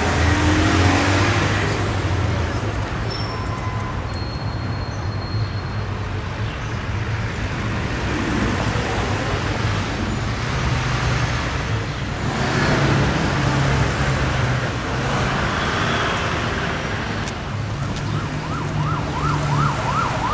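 Street traffic noise, a steady low rumble of passing vehicles. Near the end an emergency-vehicle siren starts, warbling quickly up and down.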